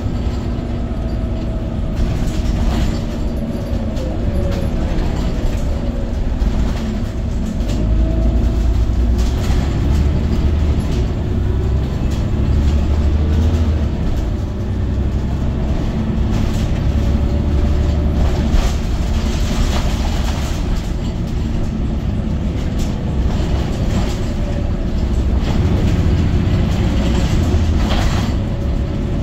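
Interior ride noise of a Scania OmniCity city bus underway: a steady low rumble of engine and road, with a faint whine that rises and falls and occasional rattles and knocks from the body and fittings.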